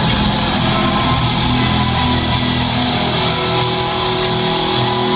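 Loud rock music with electric guitar and drums, playing steadily without singing.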